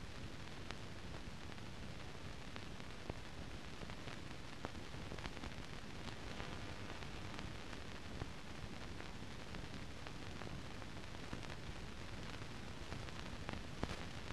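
Steady hiss with scattered single clicks and crackles and no other sound: the empty soundtrack of a silent film transfer.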